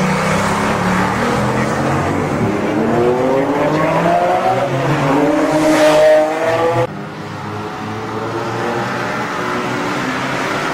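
Recorded motorcycle engine sound effect, revving up in pitch over a few seconds and then cutting off abruptly about seven seconds in. A lower, steadier engine sound follows.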